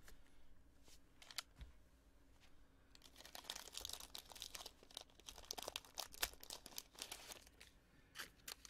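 Faint crinkling and rustling of trading-card pack wrappers and cards being handled, a few scattered clicks at first, then a steady run of crackles from about three seconds in.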